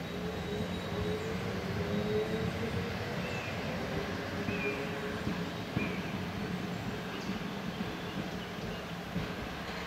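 CJ Gem 4/4 locomotive 401 rolling slowly, slowing down, with a steady low hum and a whine that falls slowly in pitch over the first few seconds.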